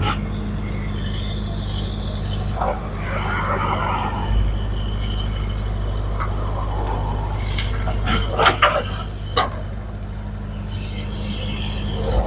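Heavy vehicle engine running steadily at a road-works site, with a few sharp metallic clanks a little after eight seconds in.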